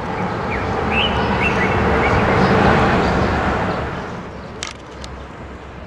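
A rushing noise that swells for about three seconds and then fades, with a few short bird chirps in the first two seconds and a couple of light clicks near the end.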